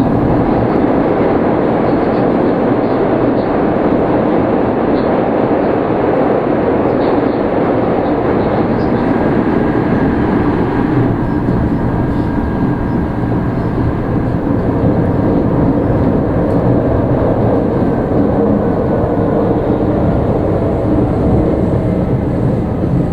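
Tokyu 5000 series electric train car with Hitachi traction equipment running: a steady loud rumble of wheels and running gear, with faint whining tones from the motor drive drifting slowly in pitch.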